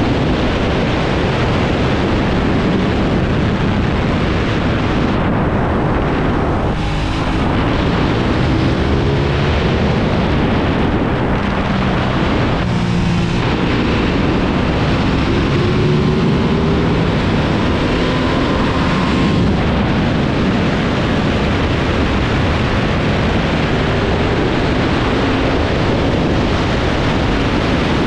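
Aprilia RS660's parallel-twin engine at speed on a race track, mixed with heavy wind rush over the microphone. The engine note rises several times as the bike accelerates out of corners, with short drops in between when the rider brakes and shifts.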